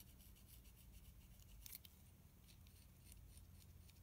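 Faint, short scratching strokes of a reed knife scraping the cane of an oboe reed blade, thinning the tip, with one louder stroke about one and a half seconds in.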